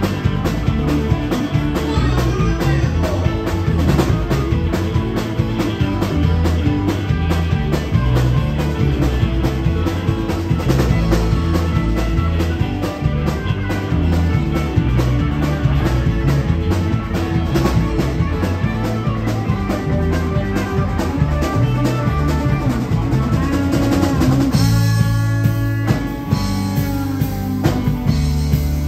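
Live rock band playing at full volume: drum kit, electric guitars and bass guitar. Near the end the drumming thins out for a moment, leaving held notes, before the full band comes back in.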